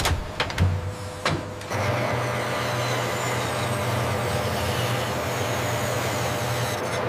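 Metal lathe running and cutting a steel workpiece under flowing coolant, a steady machine hum with a hiss. Before it, in the first second and a half, a few sharp metallic knocks.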